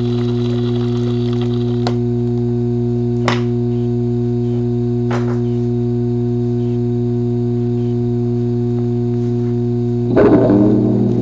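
Drone music: one low chord held steady with faint clicks over it, and about ten seconds in a louder plucked chord comes in.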